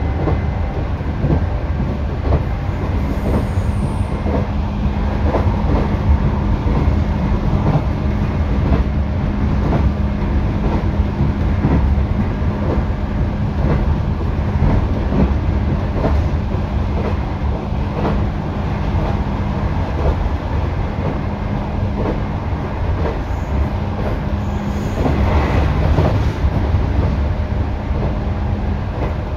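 JR 211 series electric train running steadily on the rails: a constant rumble of wheels and running gear with a steady low hum, and rail-joint clicks coming every second or so.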